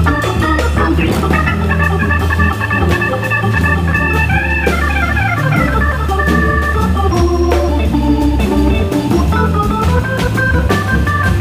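Hammond B3 organ playing a fast jazz solo line of held and moving chords and notes over low bass notes, with drums keeping time behind it.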